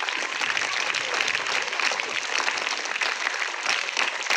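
Crowd of schoolchildren clapping and applauding steadily after a birthday song.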